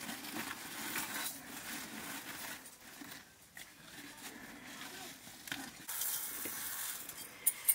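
Uncooked rice grains rustling as they are scooped from a woven plastic sack with a metal scoop, then a brighter hiss as the rice is poured into an aluminium pot about six seconds in, with a few sharp clicks near the end.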